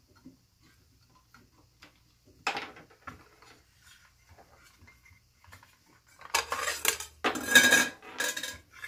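Circular saw and its steel blade being handled on a wooden workbench as the blade comes off the arbor: faint clicks, a clank about two and a half seconds in, then a run of metallic clattering and clinking near the end.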